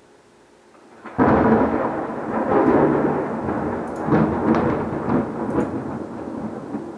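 Thunder: a sudden loud clap about a second in, then a rolling rumble that swells again several times and slowly fades.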